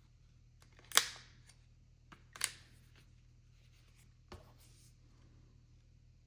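Sharp mechanical clicks and snaps from hands handling newly unboxed gun gear: two loud clicks about a second and a half apart, then a few fainter ticks.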